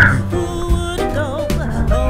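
Background music: a song with a wavering sung melody over a steady bass and drum beat.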